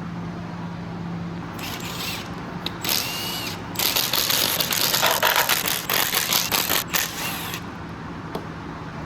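Power tool driving out T30 Torx bolts on an engine: two short runs, the second with a rising whine, then a longer run of about four seconds.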